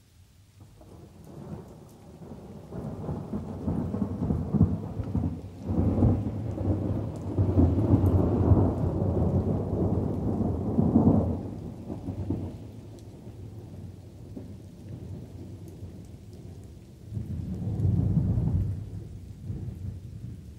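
Thunder rumbling over light rain: a long roll builds from about a second in, swells to its loudest through the middle and dies away, then a second, shorter rumble rises and fades near the end.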